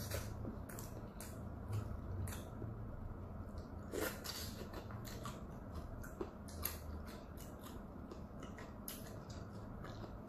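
Close-up chewing of a soft, chewy dumpling, with wet mouth clicks and lip smacks coming irregularly, a few a second, the loudest about four seconds in.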